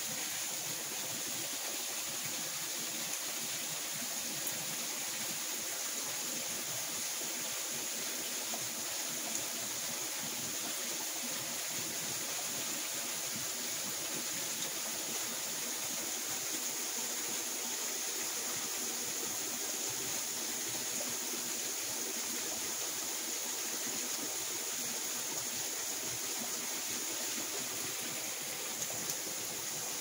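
Partly frozen waterfall, its water still pouring down behind and through the ice curtain in a steady, even rush.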